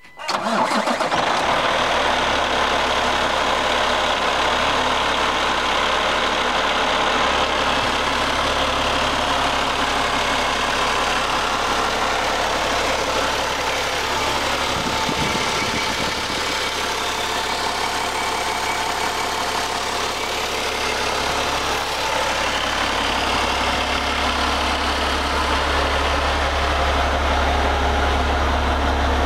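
2016 Peterbilt 389's six-cylinder diesel engine idling steadily under the open hood. A deeper low rumble comes up over the last several seconds.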